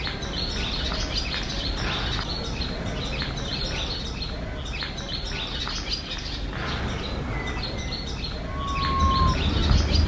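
Small birds chirping and twittering again and again over a steady low background rumble, with a brief steady whistle-like tone near the end.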